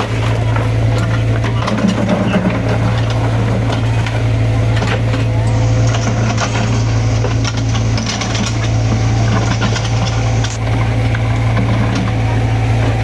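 Excavator's diesel engine running steadily, with scattered knocks and crunches throughout.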